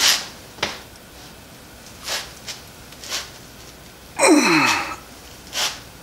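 A man's short, sharp breaths of effort and one louder strained groan about four seconds in that falls in pitch, as he strains with locking pliers to bend a hardened knife blade clamped in a vise.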